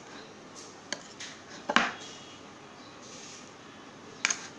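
A few clinks and knocks of a steel bowl and kitchen utensils being handled. The loudest comes about two seconds in, with another near the end.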